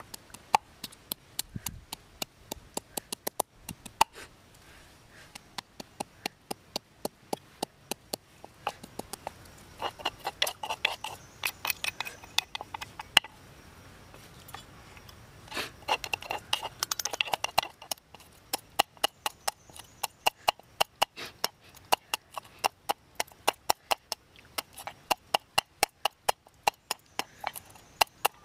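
A pestle pounding red chilies and garlic in an earthenware mortar: steady sharp knocks about two to three a second, with a short pause about halfway through.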